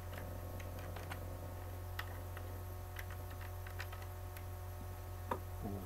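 Computer keyboard being typed on: scattered short keystroke clicks, one a little louder than the rest near the end, over a steady low electrical hum.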